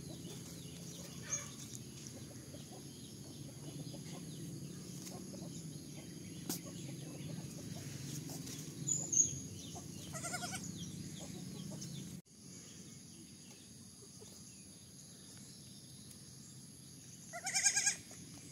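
A young goat kid bleats twice, short wavering calls about ten seconds in and again near the end, over a steady outdoor background with faint high chirps.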